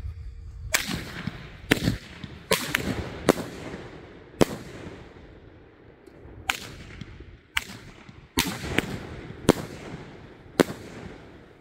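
A 500-gram consumer fireworks cake firing: about a dozen sharp bangs at uneven intervals, each trailing off briefly as the shots burst.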